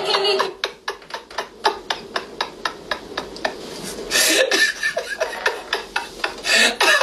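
A man laughing in short breathy pulses, about four or five a second, with two louder hissy outbursts. Rubbing noise from close to the phone's microphone runs alongside.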